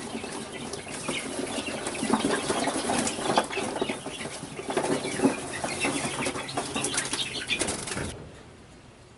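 Young chickens flapping their wings and scrambling about as they are tipped out of a cardboard box, with the box rustling and knocking. It drops off suddenly about eight seconds in.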